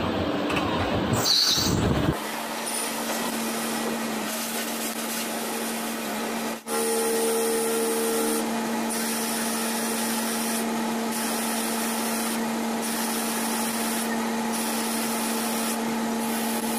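A CNC lathe turns a metal bar with a carbide insert under coolant. After about two seconds of loud low noise, the spindle settles into a steady, even-pitched hum. A second, higher tone joins it for a couple of seconds after about seven seconds.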